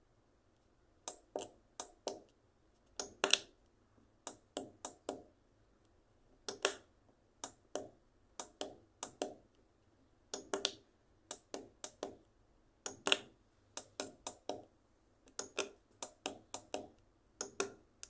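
Front keypad buttons of a Zeta Premier Quatro fire alarm repeater panel being pressed over and over: a long run of short, sharp clicks at irregular spacing, often two or three in quick succession, as the password digits are stepped through to open the installer menu.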